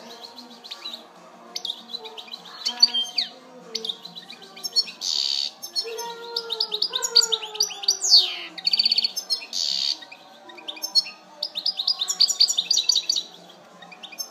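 European goldfinch singing: a long run of fast, high twittering trills broken by a few buzzy, rasping notes.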